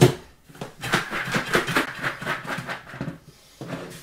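A knock, then popped popcorn and sugar shaken in a lid-covered bowl, a dense rattle for about two and a half seconds, with a little more rattling near the end.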